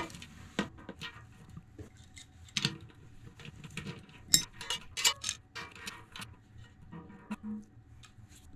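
Steel tools clicking and clinking against a bicycle cassette: a chain whip is hooked onto the sprockets and a lockring tool is turned with an adjustable wrench to take the cassette off the freehub. The clicks are irregular, with the sharpest, loudest one about four and a half seconds in.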